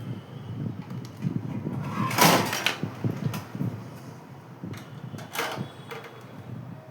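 Handling noise: irregular light knocks and clatter of objects being moved about, with two louder rustling or scraping sweeps, the loudest about two seconds in and a shorter one about five and a half seconds in.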